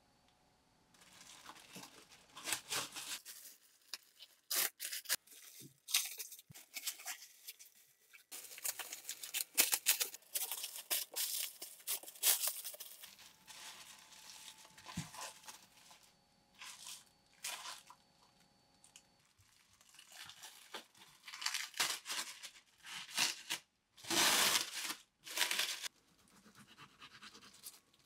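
Plastic cling wrap being torn and crinkled as it is wrapped tightly around a sandwich: irregular rustling in short bursts.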